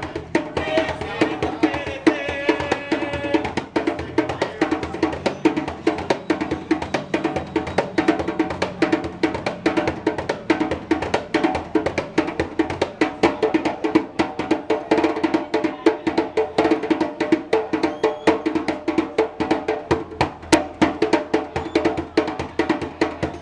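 Music with a fast, steady run of percussive strikes over pitched notes, kept up throughout.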